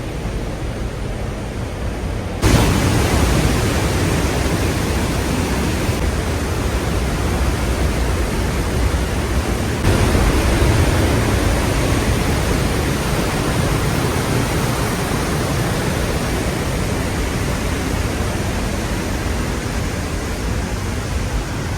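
Steady roar of a waterfall's rushing water, growing louder in two steps, about two and a half and ten seconds in.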